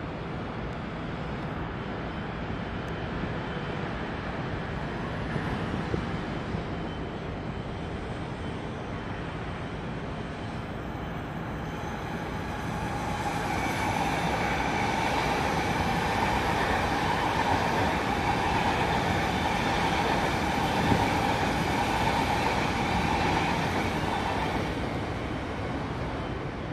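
Steady running noise of a vehicle in motion. About halfway through, a sustained high tone joins in and grows louder, then fades near the end.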